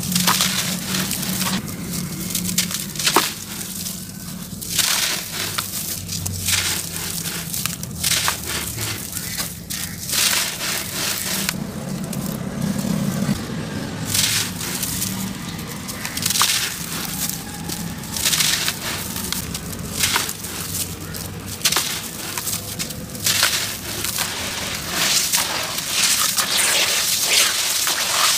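Wet sand-cement lumps crumbled by hand into a basin of water: gritty crunching and crackling with wet splashing as the crumbs drop in, coming in uneven rushes.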